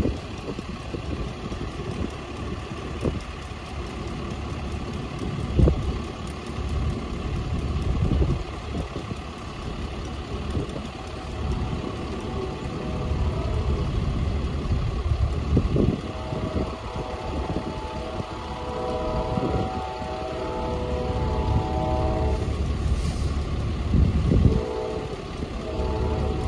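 Amtrak passenger train's diesel locomotive rumbling steadily, with occasional clanks and knocks. In the second half, a steady squeal of several tones comes and goes over the rumble.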